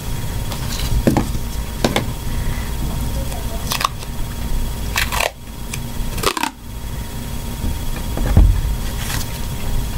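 Black duct tape being pulled off the roll and torn into strips: about seven short rips and crackles, the longest two near the middle, with cardboard being handled between them. A faint steady tone runs underneath.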